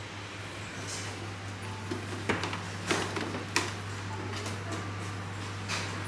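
Steady low hum of indoor room tone, with three sharp clicks in the middle and a couple of brief soft hisses.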